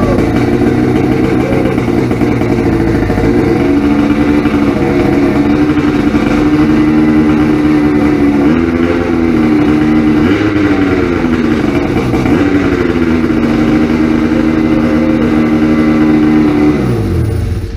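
2003 Ski-Doo Rev 600HO two-stroke twin snowmobile engine running on its first start after a rebuild with new pistons and rings, not yet filled with coolant. It runs steadily with a slight waver in pitch, then winds down and stops near the end.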